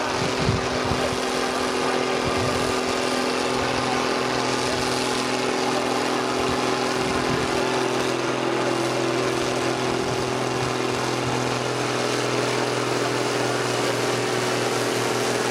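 Diesel engines of two International Harvester tractors, an IHC 1255 XL and an IHC 1455 XLA hitched in tandem, running hard under load as they drag a tractor-pull sled. A steady drone, its pitch holding.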